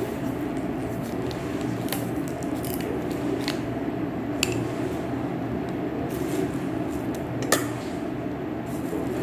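Thin plastic water bottle being handled, giving a few short crackles and clicks from the bottle and its cap, the loudest near the end. Under them runs a steady low hum.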